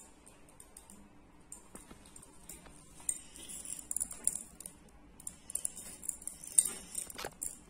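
Faint clicking and rattling of colored sugar sprinkles against a small dish as a chocolate ball on a stick is rolled and pressed into them, with a few sharper taps near the end.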